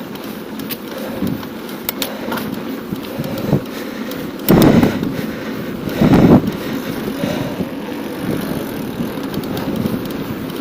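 Wind rushing over a camera microphone and tyre noise from a moving bicycle, with two short louder bursts of rushing about halfway through.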